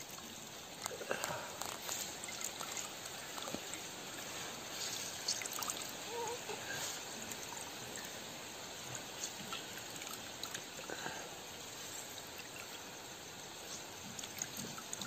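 Rambutan wine trickling and dripping through a strainer as the fermented fruit pulp is squeezed out, a steady quiet trickle with a few small ticks.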